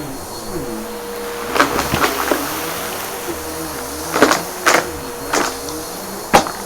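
Bissell PowerForce Helix upright vacuum running over a mess pile, its motor tone wavering, with sharp crunches and clicks as debris is sucked up; about seven cracks, the loudest near the end.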